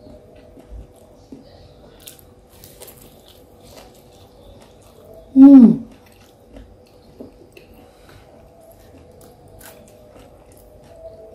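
Soft chewing and biting on fried stuffed tofu, with faint scattered clicks. About halfway in comes one loud, short tone that falls in pitch.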